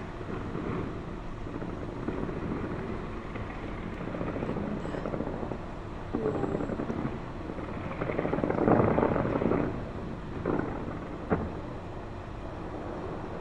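Fireworks display going off: a continuous rumble of booms and crackle that swells louder about nine seconds in, with a single sharp bang a couple of seconds later.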